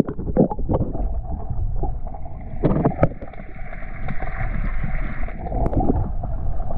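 Muffled water heard underwater: a low rumble with scattered clicks and pops, and a hiss that swells about two seconds in and fades out over the next few seconds.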